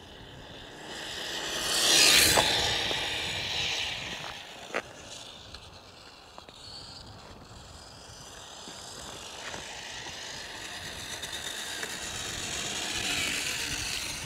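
Brushless-motored WPL D12 RC truck on a 3S battery running flat out: a high whine with tyre noise rises to a pass-by peak about two seconds in and fades away, then builds again as it comes back near the end.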